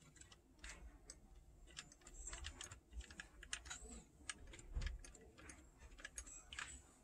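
Faint, irregular small clicks and taps of plastic and metal parts as a Sony cassette deck's tape transport mechanism is handled and worked by hand.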